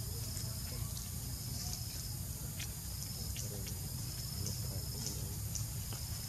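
Insects chirring steadily in a high pitch over a low steady rumble, with a few faint clicks.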